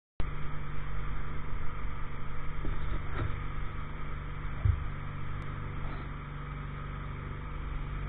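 Engine running steadily at an even low pitch on a pile-driving barge, a little louder in the first few seconds and then easing off.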